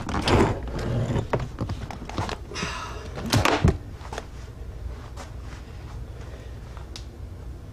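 A Ford Mustang front seat being heaved out of the car: rustling and scraping as the seat frame knocks against the interior, with a couple of loud clunks about three and a half seconds in, then only a few faint clicks.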